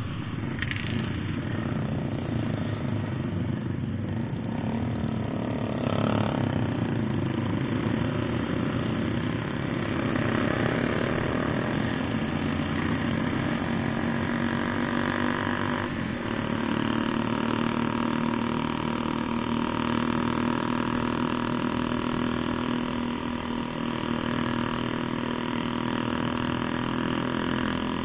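Motorcycle engine running steadily under way, heard from the rider's position.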